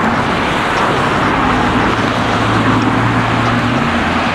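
Boeing 787 Dreamliner's jet engines making a loud, steady roar as the airliner comes in to land just above the runway.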